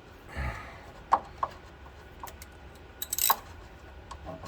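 Metal hand tools clinking against each other and the car's underside: a dull knock near the start, two sharp clinks about a second in, and a quick rattle of clinks near the end.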